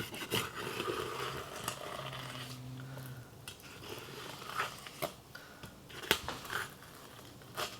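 Chef's knife slicing along the bones of a lingcod, with soft crunching and scraping strokes and a few sharp clicks as the blade works through the flesh and soft rib bones.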